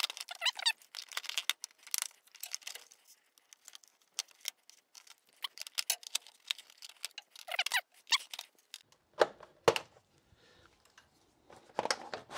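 Jeep Wrangler's upper radiator trim piece being pried loose with a trim removal tool: scattered small clicks and squeaks, with a couple of louder knocks about three-quarters of the way through.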